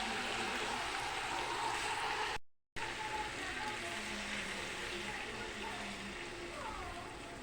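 Water poured into a hot pan of chicken, potato and papaya frying in its spiced oil, hissing and sizzling steadily. The sound cuts out for a moment about two and a half seconds in, then goes on more quietly.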